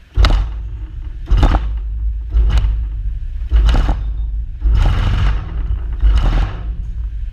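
A pressure pump stroking in a steady rhythm, about one hissing thump every 1.2 seconds, six in all, over a continuous low rumble, as it drives up the water pressure inside a bottle under a burst test.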